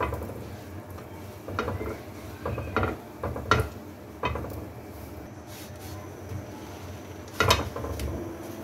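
Soft knocks and rubbing of bread bun halves being set down and pressed by hand onto a flat iron tawa to toast, several short taps a second or two apart, then a louder knock near the end as one bun is flipped.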